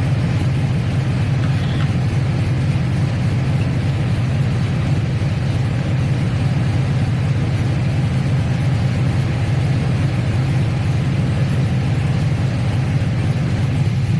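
Idling LS V8 of a 2000 Chevy Silverado with its electric radiator cooling fans running on high speed: a steady low engine hum under an even rush of fan air. The high-speed fan is still on because the coolant has not yet cooled to its 195° shut-off point.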